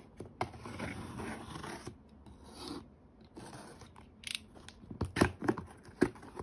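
Cardboard shipping box being opened by hand: scraping and rubbing of cardboard and packing tape as it is cut and the flaps are worked open, with a few sharp clicks and knocks around five to six seconds in.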